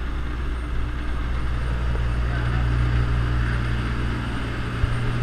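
Dive boat's engine running steadily under way: a low, even drone with a steady hiss of rushing noise over it, and a short knock near the end.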